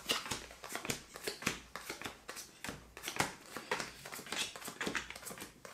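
Playing cards being shuffled and dealt onto a felt-covered table: a run of soft, irregular card snaps and slaps, a few each second.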